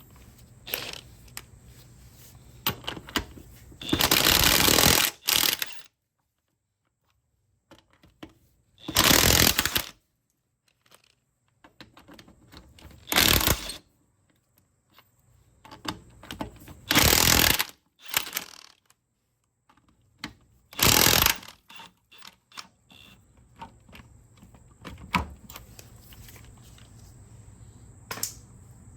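Impact wrench run in five short bursts of about a second each, driving the wheel's lug nuts, with light clicks and metal rattles of loose nuts and tools between the bursts.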